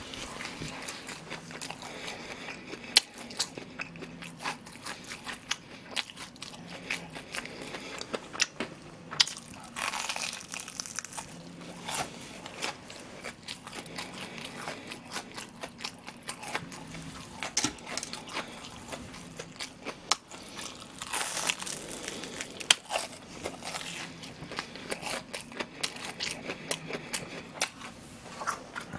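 Close-miked crunching and chewing of a deep-fried breaded pork cutlet, its crisp crust crackling sharply bite after bite, with two louder stretches of crunching about a third and two-thirds of the way through.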